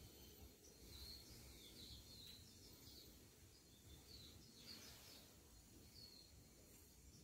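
Near silence: quiet room tone with faint, scattered short bird chirps, about one every second.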